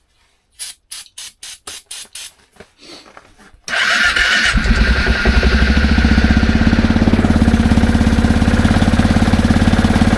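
Four-wheeler (ATV) engine being cranked on its starter, about three to four strokes a second, catching a little under four seconds in and then running steadily at idle. It is a start after the machine has sat unused for a couple of months.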